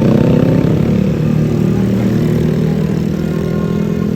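Large diesel bus engine running close by, a low pulsing drone that slowly fades.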